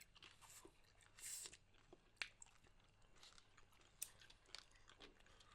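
Faint close-up chewing of food, with a few short crunches and wet mouth clicks scattered through.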